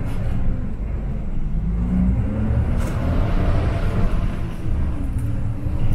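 City bus engine running under load as the bus pulls away and accelerates, its pitch climbing, dropping back about two seconds in, then climbing again over a steady low rumble.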